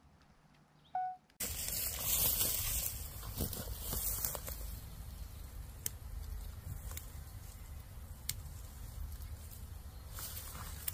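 A short beep about a second in, then rustling and crunching as someone moves through dry leaf litter and bamboo grass, with scattered sharp snaps of twigs or stems.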